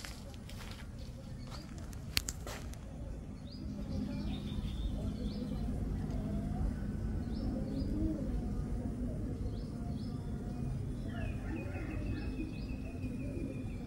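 Birds chirping in short, repeated high calls a second or two apart, over a steady low outdoor rumble. A few sharp clicks come in the first few seconds, and a steady high tone joins near the end.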